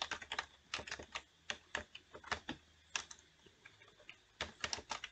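Typing on a computer keyboard: irregular key clicks with short pauses, a quicker cluster near the end.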